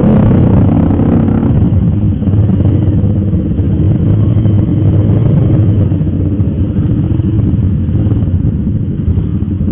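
Several sport motorcycle engines running at low revs close by as the bikes move off, a loud, steady low engine sound with no clear revving peaks.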